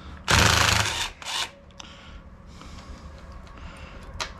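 Two short bursts of rapid mechanical rattling from a tool spinning a 13 mm socket on a motorcycle muffler-mount bolt, the first about twice as long as the second, then a single sharp click near the end.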